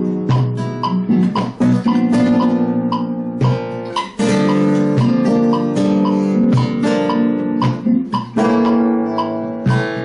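Flamenco guitar playing a soleá por bulería chord pattern, a minor iv chord resolving to a V7♭9: sharp strummed chords with ringing chords and picked notes between them.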